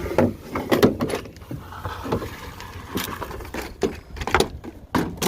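A series of irregular knocks and clatters over a low rumble, loudest about a second in and again near the end.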